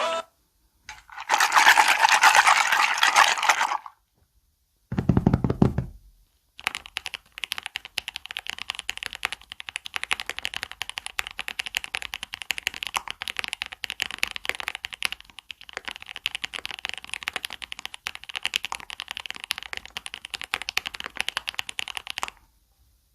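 Mechanical keyboard being typed on fast and steadily, a dense run of key clicks lasting about fifteen seconds. Before it comes a loud burst of noise lasting about two and a half seconds, then a short low rumble.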